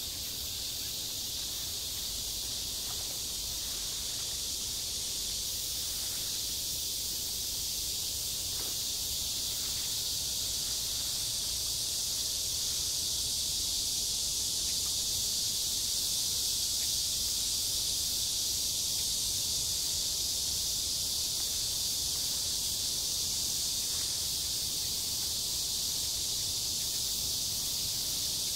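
A steady chorus of summer insects: an even, high-pitched buzzing hiss that swells slightly about halfway through.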